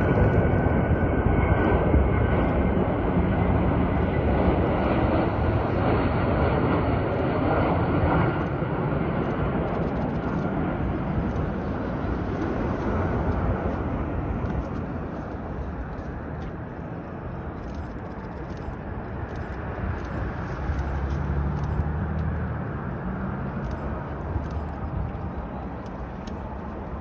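Jet engine noise from an Ilyushin Il-96-300PU's four turbofans, with a high whine at first; it fades gradually as the airliner moves away.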